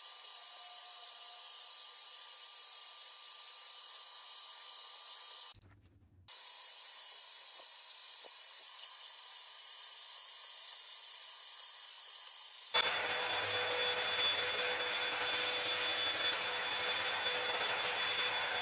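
Hot-air blow dryer brush running: a steady rush of air with a faint motor whine. It drops out for under a second about five and a half seconds in, then comes back, and about thirteen seconds in it turns louder and fuller.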